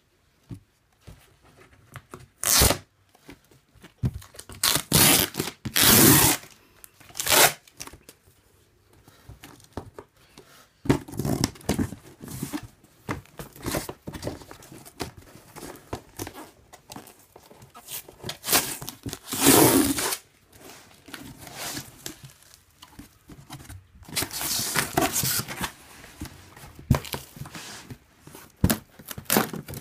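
Packing tape being ripped off a cardboard shipping box in a series of short, loud tears, with quieter rustling and handling of the cardboard flaps between them.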